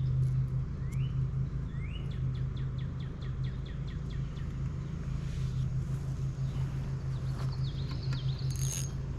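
Small songbirds chirping with short rising calls and a quick trill of repeated notes, over a steady low hum.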